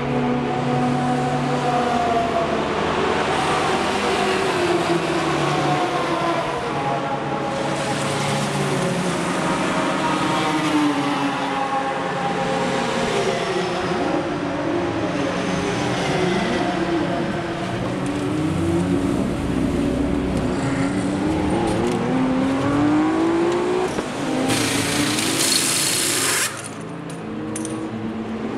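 Race car engines running in the pit lane, several engine notes rising and falling in pitch as cars pass and rev. Near the end comes a loud hiss of about two seconds, then the engine noise drops away.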